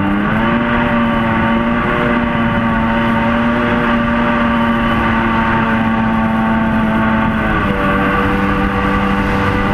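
Mini jet boat's engine running hard at speed, a steady loud drone. Its pitch rises slightly about half a second in, holds, and eases back down about two seconds before the end.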